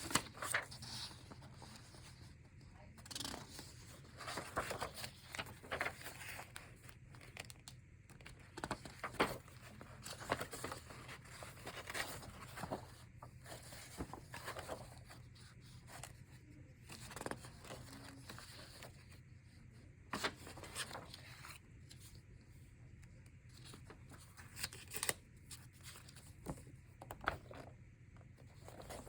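Sheets of paper being handled and turned over, with irregular short swishes and light taps.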